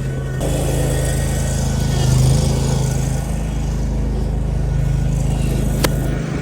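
An engine running steadily at a constant speed, with a single sharp click near the end.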